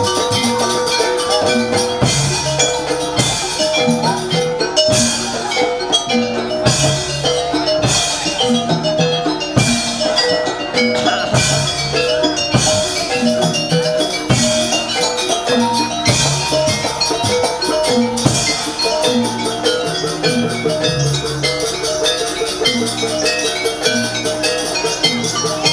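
Jaranan dance music: drums and metal mallet percussion playing a steady, repeating pattern.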